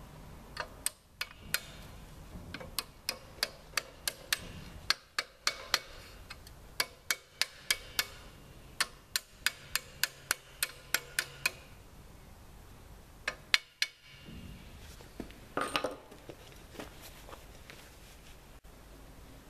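Sharp metal-on-metal taps, about two a second for around ten seconds and then two more, as pieces of a steel harvester chain bar are set and clamped on a steel table, followed by a short scrape of metal.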